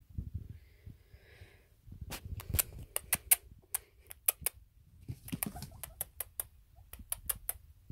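Long-haired guinea pig eating dry hay: crisp crunching clicks in two runs of about three or four a second, with a short pause between.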